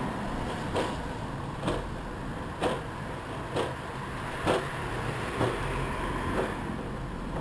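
Wheelchair rolling along a concrete sidewalk: a steady rumble of the wheels on the pavement, with a sharp knock about once a second as the wheels cross the joints between the slabs.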